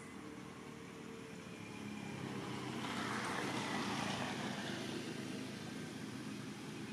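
Engine of a passing motor vehicle, a steady hum that swells to its loudest about three to four seconds in and then fades away.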